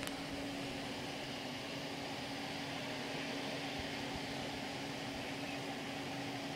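A steady mechanical hum with one constant low tone over an even rushing noise, unchanging throughout.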